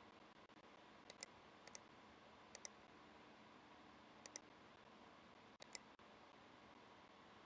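Faint, sharp clicks coming in close pairs, five pairs over about five seconds, over a faint steady hum.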